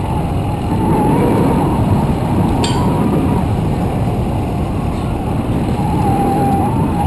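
Motorbike running along a road, with a dense rumble of engine and road noise and a steady whine that wavers slightly in pitch. A single short tick about two and a half seconds in.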